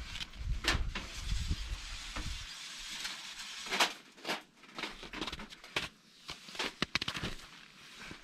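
Footsteps and rustling of a person moving about in a tent doorway on snow, with scattered sharp clicks and knocks. A low rumble sits under the first couple of seconds.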